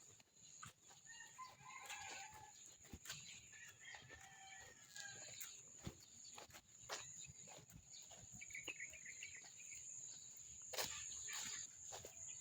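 Faint, clucking farmyard chickens, with a steady high-pitched whine throughout and scattered light clicks.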